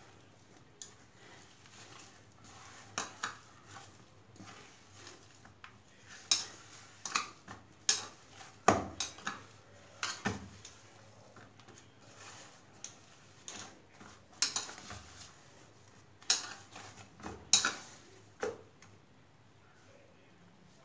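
Hands kneading a mashed raw-banana cutlet dough in a stainless steel bowl: irregular clinks and knocks against the metal bowl, a few at a time, the loudest in the middle and later part.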